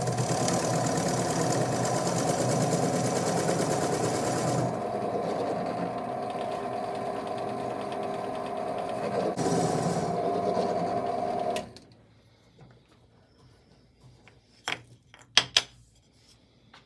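A bench pillar drill runs with a Forstner bit boring a flat-bottomed hole into a wooden block held in a drill-press vise. The cutting noise is loudest in the first few seconds and again briefly near ten seconds. The motor cuts off about twelve seconds in, and a few sharp clicks follow as the block is handled.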